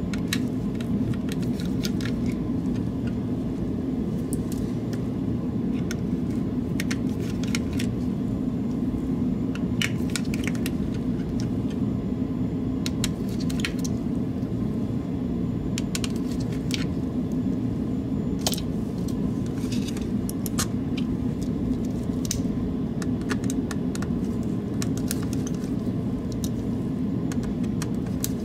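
Irregular light clicks and ticks as a small screwdriver works the screws out of a Logitech G703 mouse's plastic shell and the tiny screws are set down, over a steady low hum.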